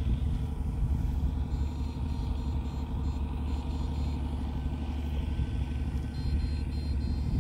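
Steady electric hum of a backpack electrofishing rig's power unit, a low drone with a faint buzzing tone over it, running without a break.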